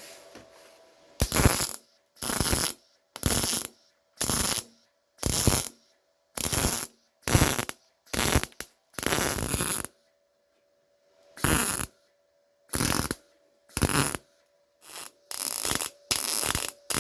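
Welder laying short tack welds on car body steel: about fourteen bursts, each under a second, with silence between, and one longer pause about two-thirds of the way through.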